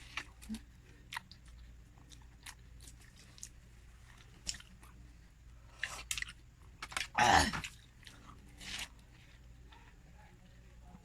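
Close-up chewing and biting of juicy watermelon flesh: small wet clicks and crunches, with a louder bite or slurp about seven seconds in.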